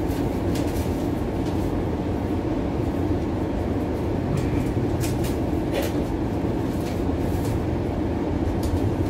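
Bombardier Flexity Outlook streetcar running along its track, heard from inside the passenger cabin: a steady low rumble with light clicks and rattles now and then.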